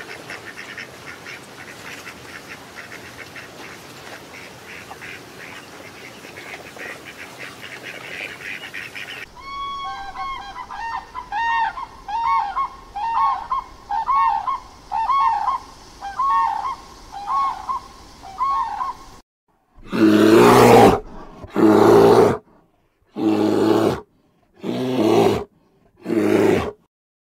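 A flock of whistling ducks giving a dense chorus of thin, high whistles. Then a pair of sandhill cranes calls in a repeated series, about one call a second. Last, a bear gives short, loud, low calls, each about a second long with silent gaps between them.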